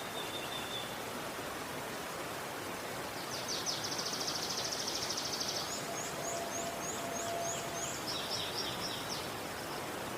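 River water rushing steadily. A songbird sings from about three seconds in to about nine seconds: first a fast, high trill, then a run of short, sharp high notes, then a few quicker, lower notes.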